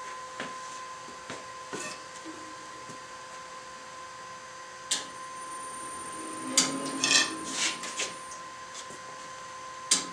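Hitachi CB75F bandsaw's new electric motor, run through a variable frequency drive, running with a steady whine. Several sharp knocks and rattles come from handling parts at the saw, about halfway through and again near the end.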